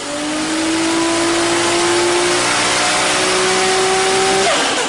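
Car engine at high revs accelerating hard, its pitch climbing slowly, with a shift about halfway through and a drop in pitch near the end.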